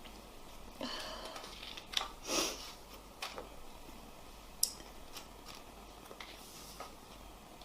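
Quiet sniffs and breaths from a person with a head cold: two short sniffs in the first few seconds, with a few small sharp clicks between and after.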